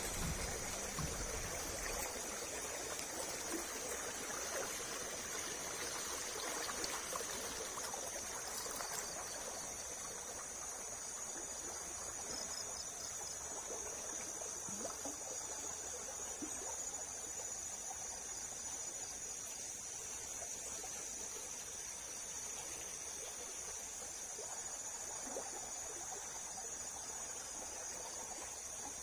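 Water rushing and trickling over a small river weir, with insects, crickets among them, trilling steadily in a high band.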